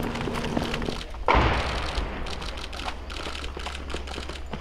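Gunfire in a street battle: scattered shots crackling, with one loud report about a second in that echoes off the buildings.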